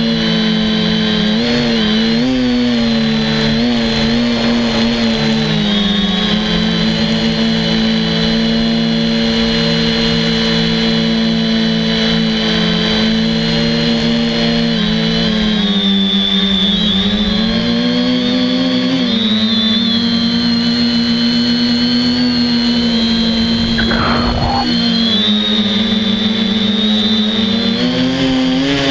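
FPV quadcopter's electric motors and propellers running, picked up by the camera on the craft itself: a loud buzz with a high whine whose pitch drifts up and down with the throttle, and a brief rising-and-falling sweep about 24 seconds in.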